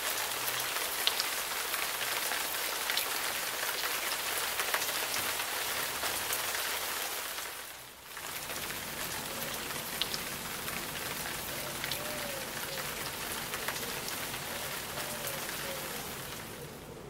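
Steady rain falling, a dense hiss with scattered sharp drop ticks. It dips briefly about eight seconds in and then carries on.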